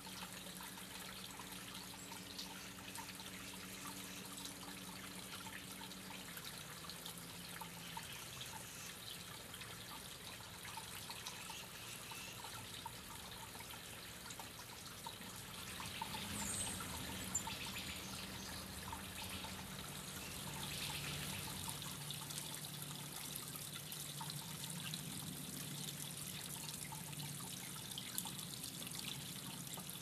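Small garden water feature trickling and dripping steadily, under a low steady hum. A single short, high chirp comes about halfway through.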